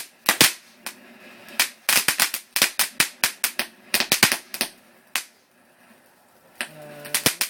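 Firework called 'Cricket' going off in a rapid, irregular string of sharp cracks and bangs, with a pause of about a second and a half near the end before a few more cracks.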